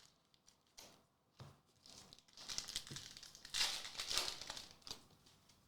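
Crinkling and rustling of a foil Pokémon booster-pack wrapper being handled and opened, in a few short crackles and then a denser, louder spell of crinkling in the second half.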